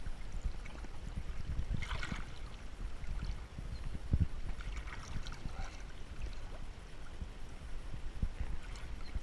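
River water running and gurgling, with low rumbling on the microphone.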